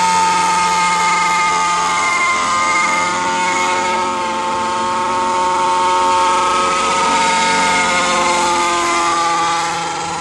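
Zenoah G26 two-stroke gas engine of an R/C helicopter running in flight, a steady engine note whose pitch drifts up and down a little as the helicopter flies, easing slightly in level near the end.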